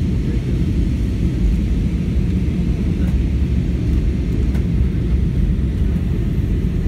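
Steady low rumble of a jet airliner's cabin during descent to land: engine and airflow noise heard from inside, even in level and strongest in the low range.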